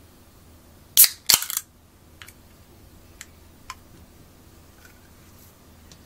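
Ring-pull aluminium drink can cracked open: a sharp crack about a second in, then straight away a short hiss of escaping gas. A few faint ticks follow.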